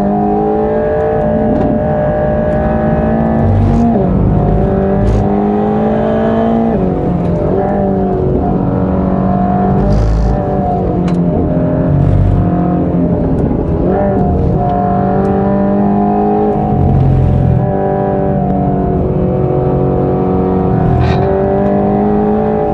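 Mercedes-AMG GT Black Series twin-turbo V8 under hard acceleration on a racing lap, its pitch climbing and then dropping sharply at quick upshifts about 4 and 7 seconds in. Later the revs rise and fall through braking, downshifts and corners, with a few short sharp cracks.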